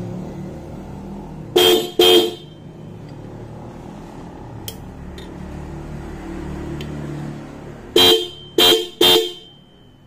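A pair of 12-volt disc-type motorcycle horns sounded together in short, shrill blasts, like a car's horn: two quick blasts about a second and a half in, then three more near the end.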